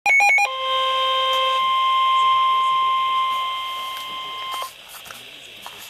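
Emergency alert tones: a quick run of rapidly alternating electronic beeps, then a steady single-pitch alarm tone, the weather-radio warning tone that opens a National Weather Service alert. The tone is held about four seconds, fades slightly and cuts off with a click.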